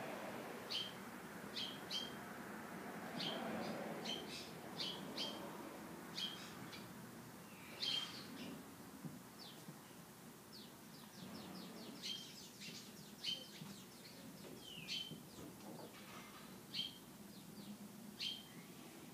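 Small birds chirping in short, sharp calls, about one or two a second, over a faint low background noise.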